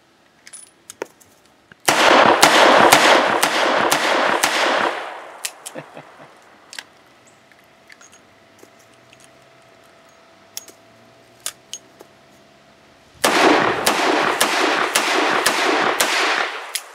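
Alfa Proj Model 3561 revolver with a 6-inch barrel firing .357 Magnum rounds: two shots about eleven seconds apart, each a sudden loud blast that carries on for about three seconds.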